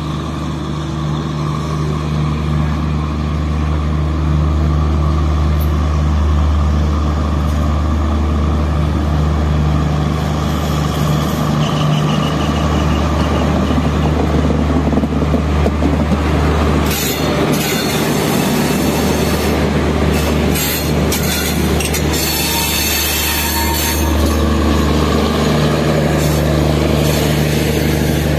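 An express passenger train hauled by an electric locomotive approaches and passes close by with a steady low hum. A brief wheel squeal comes about halfway through, and dense clattering follows as the coaches roll past over the rail joints in the last third.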